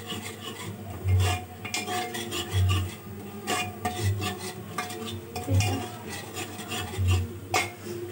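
Cooking spoon scraping and stirring thick masala around the bottom of an aluminium pressure cooker in repeated strokes, as the onion-tomato masala is fried down on a low flame.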